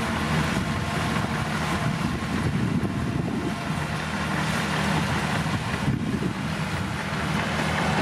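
Caterpillar bulldozer's diesel engine running steadily: a low drone under a broad rushing noise.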